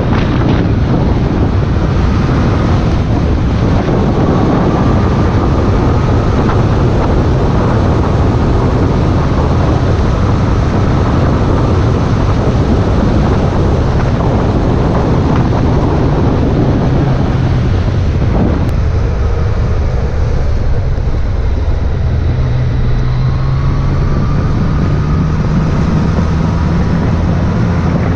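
Strong wind noise buffeting a GoPro microphone at road speed on a moving motorcycle, with the Yamaha MT-09 SP's three-cylinder engine running underneath. The low engine note climbs slightly in the last few seconds.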